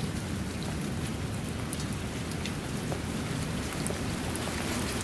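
Steady rain falling on shallow puddled water and wet ground: an even hiss with scattered individual drop ticks, over a low steady rumble.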